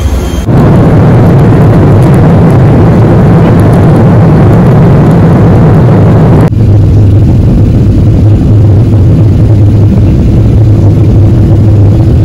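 Loud, steady rumble of a vehicle in motion, with a low drone. The sound changes abruptly about half a second in and again about six seconds in.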